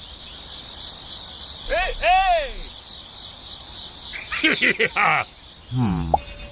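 Steady high-pitched insect chirring, like crickets. Over it come three short, voice-like calls that rise and fall in pitch.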